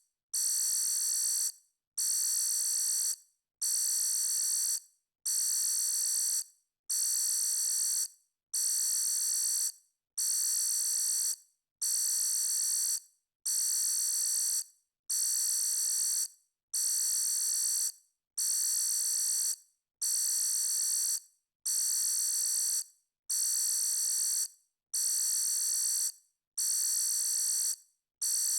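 Electronic alarm sounding in a steady repeating pattern: a high-pitched tone about a second and a quarter long, then a short gap, about every second and a half.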